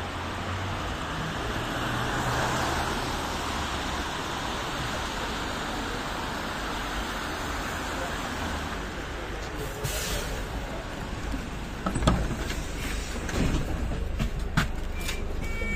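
Traffic noise on a wet street, tyres hissing on the road, with a vehicle passing about two seconds in. About ten seconds in comes a short pneumatic hiss from the bus, followed by several sharp knocks and clatters as it is boarded.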